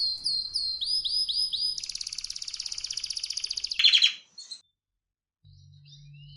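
Canary singing: a series of quick falling notes, about four a second, then a fast rolling trill that breaks off about four seconds in. After a short gap, fainter high notes start again over a low hum.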